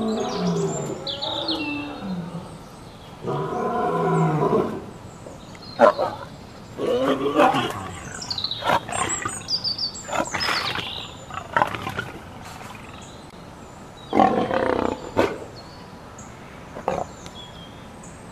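Lioness calling: several pitched calls, each about a second long, a few seconds apart, with sharp clicks in between and faint high chirps above.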